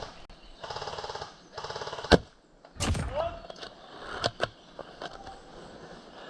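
Airsoft electric guns firing two rapid full-auto bursts, a fast buzzing rattle. A single sharp crack follows, the loudest sound, with scattered clicks after it.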